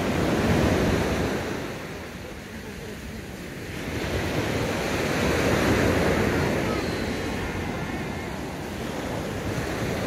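Small sea waves breaking and washing up the beach, mixed with wind on the microphone; the surf eases a couple of seconds in and swells again.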